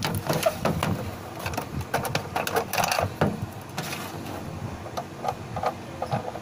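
Plastic clicks and knocks as the film door of a Polaroid Supercolor Esprit 600 instant camera is swung open and the camera and film pack are handled. The clicks come thick and fast in the first few seconds, then sparser.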